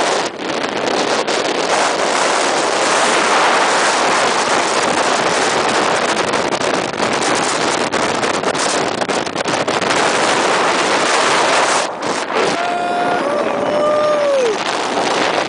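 Steady rush of wind over the microphone of a camera carried by a skier going fast downhill, mixed with the skis running over the snow. Near the end a voice gives a long call that bends in pitch.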